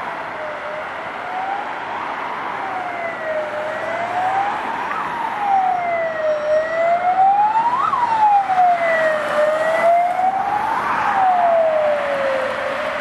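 Police van's electronic siren sounding a wail, its pitch sweeping slowly up and down about once every three seconds. It grows louder in the middle as the van passes close, and its low point sinks a little near the end as it drives away.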